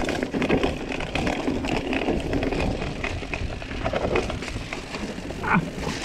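Full-suspension mountain bike (Orbea Occam TR) rolling fast down a dirt forest trail: tyre noise on the ground with many rattling clicks over bumps, and wind rumble on the microphone.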